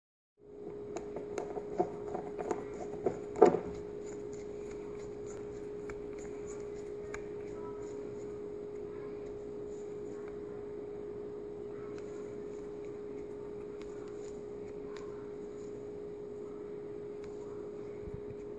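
A steady hum on one pitch throughout, with light metallic clicks and taps during the first few seconds, the sharpest about three and a half seconds in, as a metal RC boat strut and the driver in its adjusting screw are handled; a few faint ticks follow.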